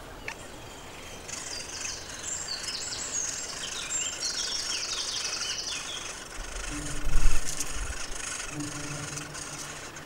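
Great spotted woodpecker nestlings begging from the nest hole in a run of high, short chirping calls, with a fast rattle of repeated notes in the middle, as the adult comes to feed them. A low thump about seven seconds in is the loudest sound.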